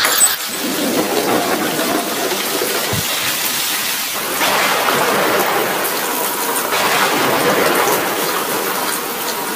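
Heavy rain, a steady downpour hiss, with a brief sharp crack right at the start.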